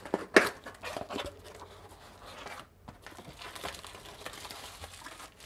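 Cardboard shipping box being torn open by hand: a few sharp rips of tape and card in the first second or so, then bubble wrap crinkling softly as the flaps are folded back.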